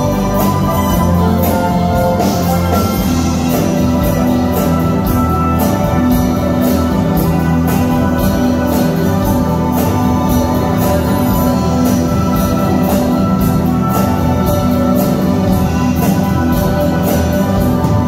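A live rock band playing a song: electric guitar, synth keyboards and a drum kit keeping a steady beat on the cymbals.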